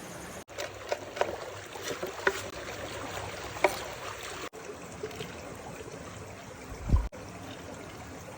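Water trickling steadily, with a few sharp clicks in the first few seconds and a low thump about seven seconds in; the sound drops out briefly three times.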